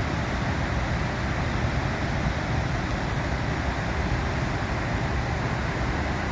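Flooded Cohoes Falls on the Mohawk River rushing in a steady, dense wash of water noise with a deep low rumble, the falls in high flood after more than a week of rain.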